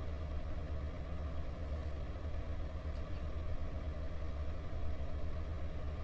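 A steady low mechanical hum in the background.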